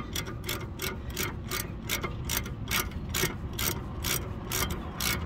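Hand ratchet wrench clicking steadily, about five clicks a second, as a brake caliper bracket bolt is run in.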